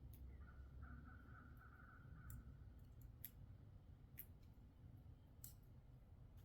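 Squirrel gnawing the thick shell of a black walnut with its teeth: faint, sharp clicks, about five of them at irregular intervals.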